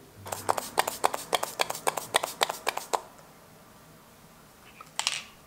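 MAC Fix+ Gold setting spray bottle being worked at the face: a fast run of short, sharp spritzing sounds for about three seconds, then one short hiss about five seconds in.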